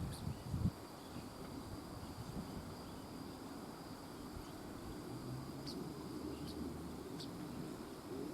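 Outdoor countryside ambience: an insect's steady high-pitched trill, with three short chirps from small birds in the second half. A low steady rushing runs underneath, and there is a low thump about half a second in.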